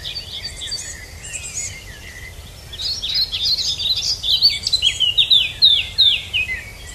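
Songbirds singing in a dense chorus of quick chirps and short falling whistles, growing busier and louder about halfway through.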